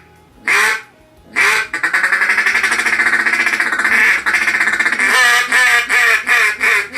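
Rais-A-Ruckus Torch triple-reed duck call blown by mouth: two single quacks, then a rapid feed chuckle of fast, unbroken notes for about three seconds, then a string of raspy quacks near the end.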